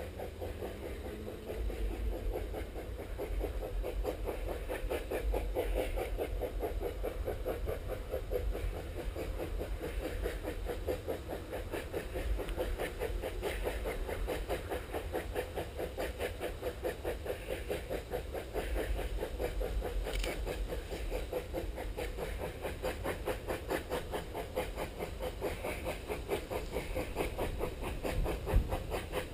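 Distant narrow-gauge 2-6-2T steam locomotive 6A working as it approaches, its exhaust a fast, steady chuffing.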